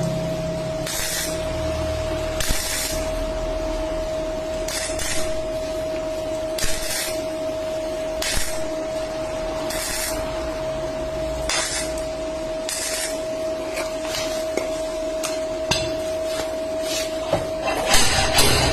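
Auto body repair tool work: a steady mid-pitched machine whine with short hissing strokes every one to two seconds. Music comes in near the end.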